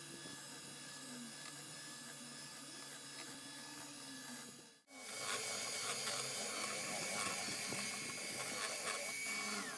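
SilverCrest electric hand mixer running, its beaters whisking eggs in a stainless steel bowl, a steady whirr. It breaks off briefly about five seconds in and then runs louder, and its pitch drops at the very end as it slows.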